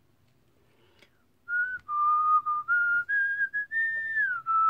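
A person whistling a tune, starting about a second and a half in, holding notes that step up and down in pitch with short slides between them.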